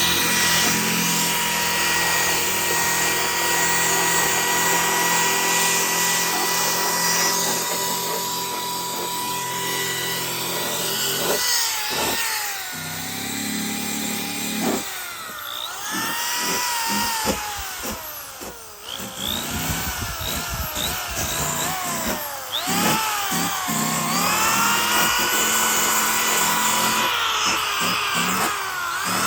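Corded electric drill running, used to clean old material off a headliner board before it is recovered. Its motor whine holds steady at first, then from about a third of the way in repeatedly rises and falls as the speed is feathered up and down, with brief dips and restarts.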